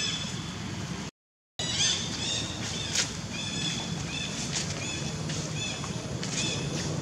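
Repeated short, high-pitched chirping calls from small animals over a steady low background. The sound drops out briefly about a second in.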